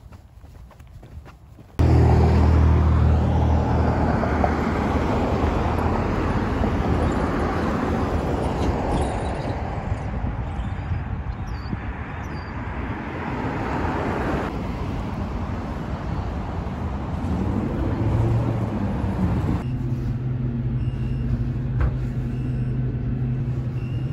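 Faint footsteps on pavement, then about two seconds in, loud road traffic starts suddenly: motor vehicles passing with a low engine rumble.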